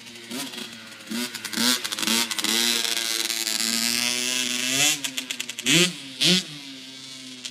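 Small dirt bike engine revving up and down as it is ridden, its pitch rising and falling with the throttle. It holds a steady pitch for a couple of seconds in the middle, with two sharp blips near the end.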